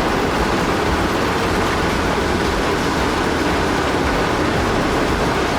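Heavy machinery running: a loud, steady, dense rumble with no distinct strokes or changes.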